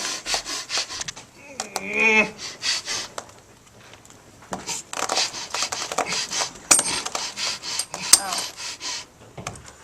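A person making rapid, harsh rasping breaths, with a short pitched groan about two seconds in, as if heaving to cough something up. Two short high metallic clinks sound near the end.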